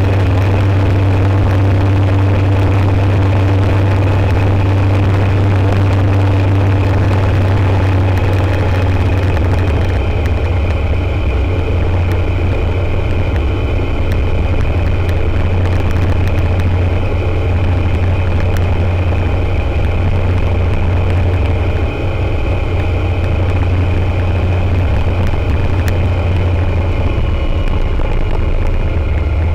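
Rotax 912 ULS flat-four engine and propeller of an Aeroprakt A22LS Foxbat ultralight droning steadily in flight, heard from inside the cockpit. The tone shifts slightly about ten seconds in.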